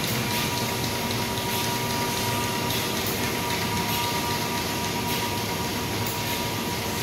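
Presstek Dimension 225 computer-to-plate unit running: a steady machine hum with a thin, constant whine and a few faint ticks.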